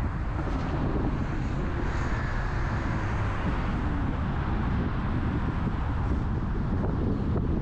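Steady road noise of a car driving: a low rumble with wind noise on the microphone.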